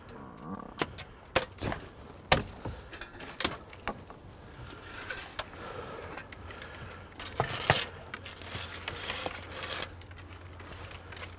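Thin branches and twigs of a small tree being bent and snapped by hand: a string of sharp irregular cracks, with rustling of the branches and leaves, and a louder cluster of snapping about three-quarters of the way through.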